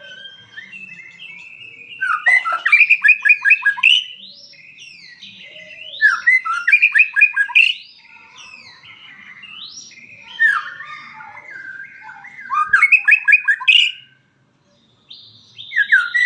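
A murai songbird singing: loud phrases of fast repeated notes come every few seconds, with quieter warbling and chatter between them. Near the end the song cuts out for about a second, then starts again abruptly.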